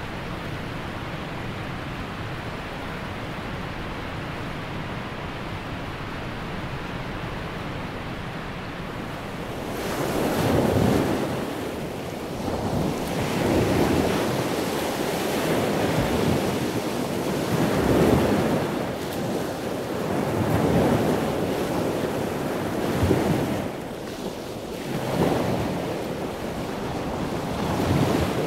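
Heavy ocean surf and wind with wind buffeting the microphone: a steady rushing for about the first ten seconds, then louder and swelling and easing every two to three seconds.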